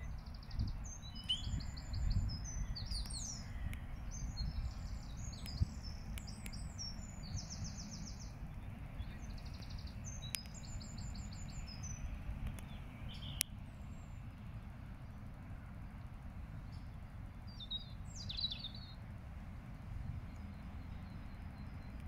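Common starlings singing: strings of rapid clicking rattles and short whistles, dense for the first dozen or so seconds, then only a few calls. A steady low rumble of background noise lies underneath.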